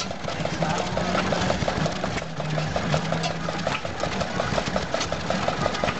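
1923 Ruston Hornsby IP 7 hp single-cylinder stationary engine running steadily with a quick, even beat.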